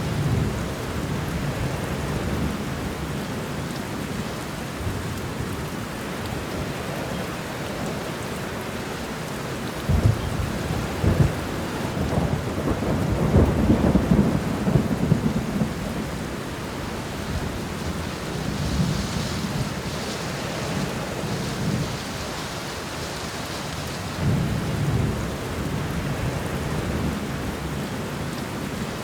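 Steady rain with thunder: a sudden clap about ten seconds in that rolls on as a low rumble for several seconds, and a softer rumble later.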